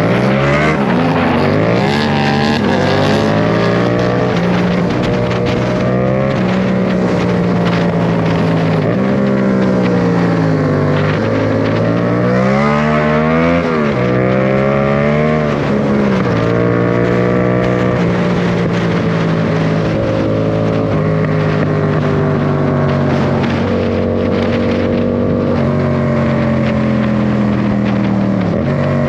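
Yamaha MT-07's parallel-twin engine through a Mivv GP Pro carbon full exhaust system, heard from the moving motorcycle. In the first half the revs climb and drop several times, with the biggest climb and fall about halfway through; after that the note holds fairly steady with a few short dips.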